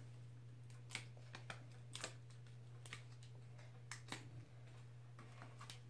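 Faint, scattered little clicks and ticks of fingers handling a small paper piece, peeling and pressing foam adhesive dimensionals onto its back, over a steady low hum.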